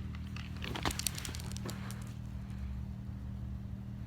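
Diet Coke and Mentos eruption: a few light clicks about a second in, then a soft fizzing hiss of foam gushing from the bottle that fades after about a second, over a steady low hum.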